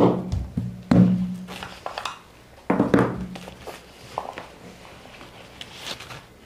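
Small objects knocked down onto a tabletop: three sharp thunks, each with a low ringing that fades over about a second, followed by lighter clicks and taps.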